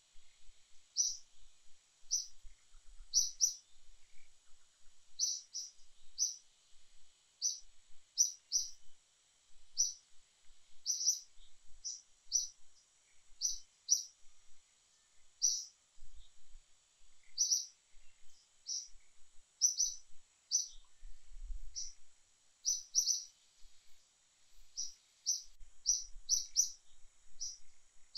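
A small bird chirping: short, high chirps, often in quick pairs, repeating irregularly about once or twice a second. A faint steady high whine sits behind them.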